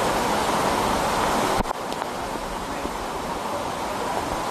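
Floodwater rushing down a street in a steady torrent. A short knock comes about a second and a half in, and after it the rush is slightly quieter.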